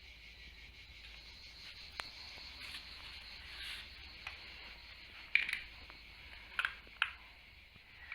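A few small, sharp clicks and crinkles over a steady hiss, with most of them between about five and seven seconds in: light handling noises.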